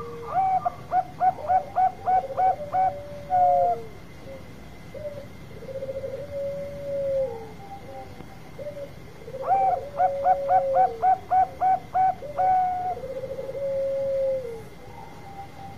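Bangkok-type zebra dove (perkutut) cooing in its full song, twice: each bout a quick string of about eight short clipped notes ending in a longer held note. Lower rolling coos that slide down in pitch fill the gaps between the bouts.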